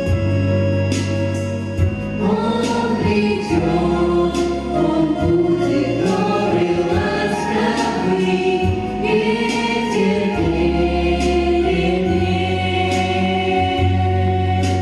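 A choir singing a song over an instrumental backing with a steady beat and bass; the voices come in about two seconds in.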